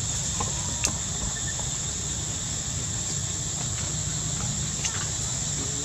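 Insects droning steadily at a high pitch, over a low rumble, with one sharp click about a second in.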